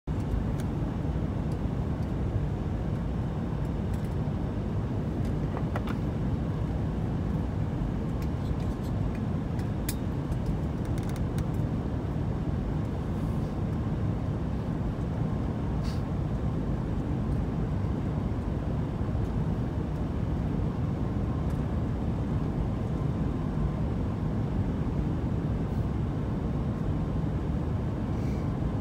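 Steady low cabin rumble of an Airbus A380 on final approach: the noise of its four engines and rushing air, heard from inside the passenger cabin, with a few faint clicks.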